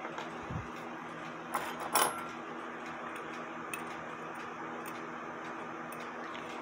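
Light metallic clinks and taps from handling a brass clock plate and a cutting broach in a pin vise, with a few sharp clinks about one and a half to two seconds in. A steady low hum runs underneath.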